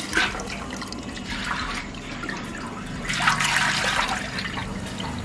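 Ginger juice trickling and dripping through a mesh strainer into a steel pot as it is strained, with a louder stretch of liquid noise about three seconds in.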